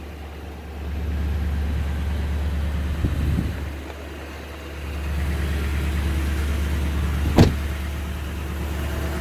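Low, steady rumble of a pickup truck's engine idling, heard from inside the cab, easing off for about a second midway, with one sharp click about seven and a half seconds in.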